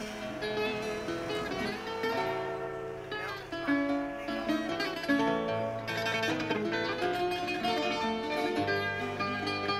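Instrumental background music played on plucked string instruments, a flowing run of picked notes with no singing.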